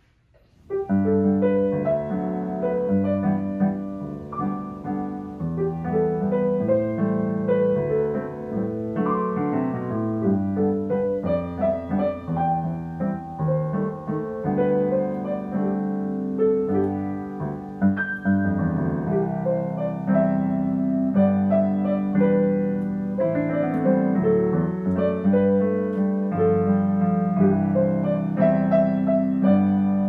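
Two pianos playing a gentle waltz together as a duet, starting about a second in after near silence.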